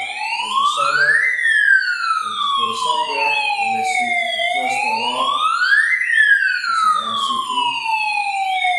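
Electronic alarm siren wailing: the pitch rises over about a second and a half, then falls slowly over about three seconds, and repeats evenly. It is set off from the control panel under demonstration.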